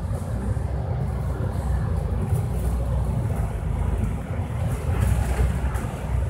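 MAN Lion's City double-decker bus under way, heard from inside the cabin: a steady low drone from the diesel engine and drivetrain, with tyre noise from the wet road.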